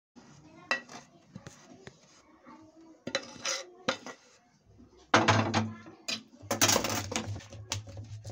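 Metal spatula scraping and clinking against a pan and a steel plate as a sticky jaggery, sesame and peanut mixture is scraped out and spread. Irregular scrapes and knocks, the loudest in the second half.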